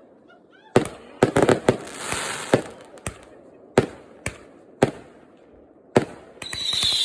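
Fireworks going off: a series of sharp bangs at irregular spacing, with a quick crackling cluster about a second in. Near the end a high whistle starts and falls slightly in pitch.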